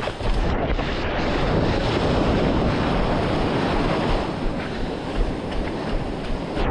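Sea surf washing, with wind buffeting the microphone; the rush of water swells up about half a second in and holds steady.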